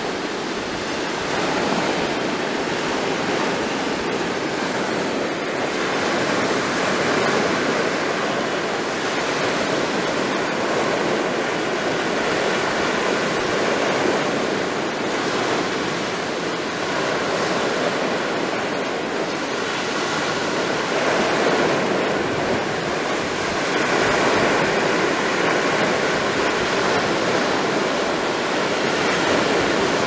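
Baltic Sea surf breaking and washing over a stony, boulder-strewn shore: a continuous rush of water that swells and eases every several seconds.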